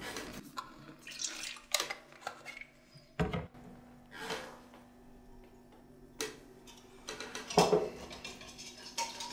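Kitchen handling sounds: a metal mixing bowl, a bottle and utensils set down and knocked against a worktop, about five separate knocks with the loudest a little over three seconds in. A faint steady hum runs underneath.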